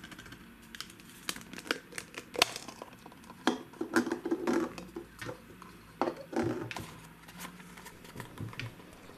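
Hands pulling apart a hollow plastic Tomy Hide Inside Winnie the Pooh stacking cup and lifting a small cardboard box out of it: irregular plastic clicks, taps and rubbing, with a few louder knocks around the middle.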